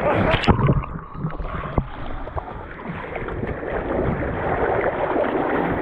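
Sea swell surging and sloshing against rocks as a swimmer hauls himself out of the water, with a couple of loud splashes near the start, then a steady wash of water.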